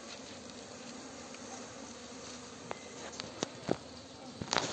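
Honey bees buzzing steadily around the hive, with a few sharp clicks and knocks in the second half.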